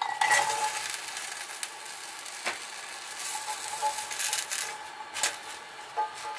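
Cut yardlong beans tipped into a stainless steel pan with a little hot water, sizzling, then stirred with a silicone spatula that knocks against the pan a few times.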